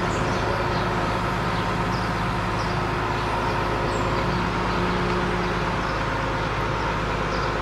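Tofaş sedan's engine idling steadily, an even hum that holds the same pitch throughout.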